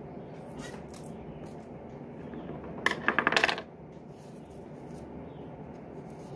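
A brief burst of rapid clicking about three seconds in, lasting under a second.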